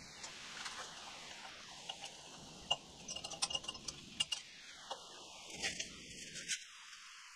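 Irregular small metallic clicks and clinks of hand work with bolts, brackets and tools while a light bar mount is fastened to a riding mower, busiest about three to four seconds in.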